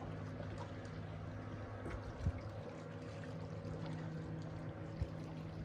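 Water lapping and trickling against a small fishing boat, under the steady hum of a boat motor that drops out briefly about two seconds in. Two short knocks, about two and five seconds in, are the loudest moments.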